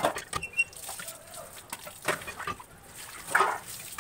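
Washed dishes and bowls clinking and knocking against each other while being rinsed under a tap, with a burst of splashing water about three and a half seconds in.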